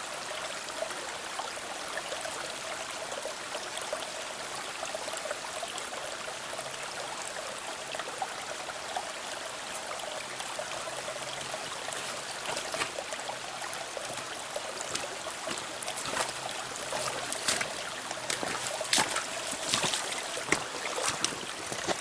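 Small rocky mountain stream trickling and flowing over stones, a steady rush of water. Over the second half a scatter of sharp clicks and ticks comes in, growing busier toward the end.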